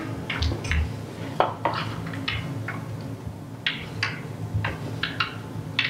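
Irregular small metallic clicks and clinks, about a dozen, with a couple of duller knocks in the first second, as a bolt is set into the metal corner plate of a wooden slatted bed base and a wooden leg is fitted to it.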